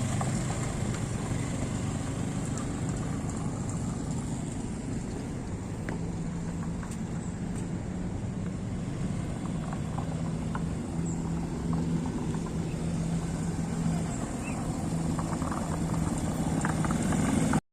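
ATV engine running, its note shifting up and down a little as it is ridden; the sound cuts off abruptly near the end.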